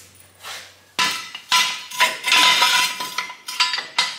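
Steel jack stand clanking and rattling as it is set in place on a concrete floor. From about a second in comes a run of sharp metal knocks with a ringing tone.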